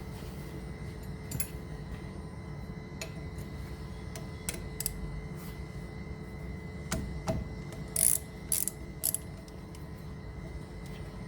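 Metal hand tools clicking and clinking on a brake caliper and its guide bolts, with a handful of sharper metallic clinks about eight to nine seconds in, over a steady low hum.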